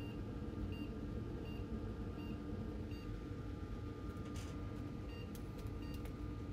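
Short, high PC beep-code beeps, about one every three-quarters of a second: a run of five, a short pause, then more near the end. This is the six-beep error signalling that the graphics card is still not detected. Under them runs the steady hum of the bench computer and its fans.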